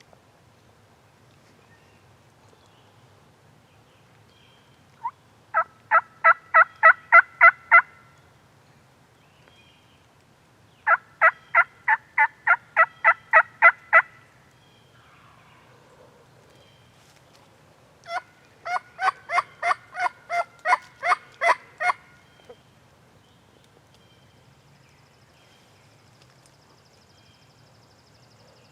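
Turkey call worked by a hunter, yelping like a hen: three runs of about nine to eleven evenly spaced yelps, roughly four a second, with pauses of a few seconds between runs.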